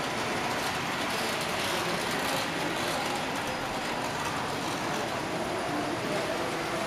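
Steady background noise of a large model railway exhibition hall, with a faint murmur of distant voices.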